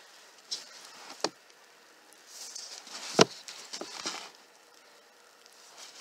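Books being handled on a wooden shelf: a gloved hand tilts and slides them, with rustling and a few sharp knocks, the loudest a little after three seconds in.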